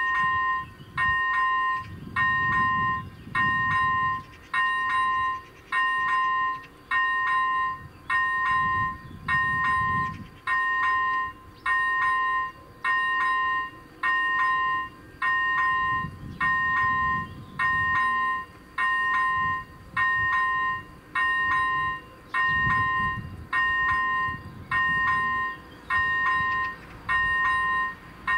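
Level-crossing warning bell sounding about once a second, each stroke a short two-pitched ding, while the crossing's red lights flash: the crossing is active for an approaching train.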